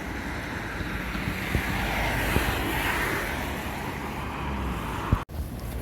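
Road traffic noise with one vehicle passing, swelling and fading about halfway through, over a low steady rumble. The sound cuts off abruptly near the end.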